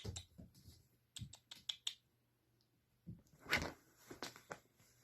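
Faint, quick clicks and taps, a run of them about a second in and another cluster around three and a half seconds in: a cat batting at and moving its fetch toy.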